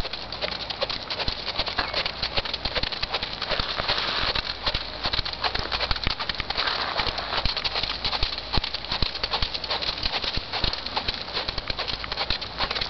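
Quarter Horse gelding's hoofbeats on arena sand as it trots under a rider, a steady run of soft thuds.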